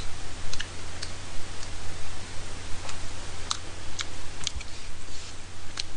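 Eating sounds: chewing and chopsticks against a plastic takeout tray of tteokbokki, heard as sharp clicks scattered about once every half second to a second, over a steady low hum.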